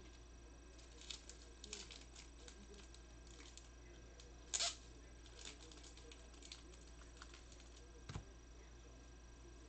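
Trading cards and card-pack wrappers being handled: soft scattered rustles, a sharper crinkle about four and a half seconds in and a light knock near the end, over a low steady hum.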